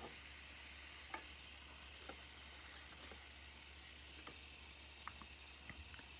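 Near silence: a faint fizz with a few soft, scattered ticks, as of small air bubbles escaping and popping at the surface of a small tank around a freshly submerged activated-carbon block.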